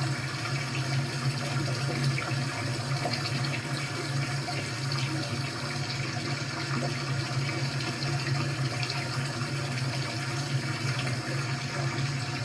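Recorded running water playing back through a computer's speakers: a steady rushing hiss with a constant low hum underneath.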